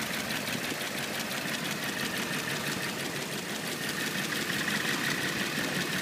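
1959 Ford Thunderbird's V8 engine idling steadily and smoothly, shortly after a cold start. A faint high steady whine joins in about two seconds in.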